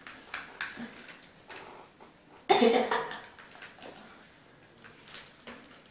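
Headphones being handled and pulled on, a run of small clicks and rustles, then a short burst of laughter about two and a half seconds in.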